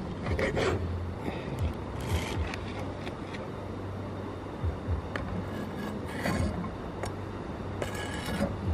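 Kitchen knife clicking and scraping on a plastic cutting board while sausage is sliced, with scattered sharp clicks and short scratchy scrapes; just before the end the slices are scraped off the board into a frying pan. A steady low hum runs underneath.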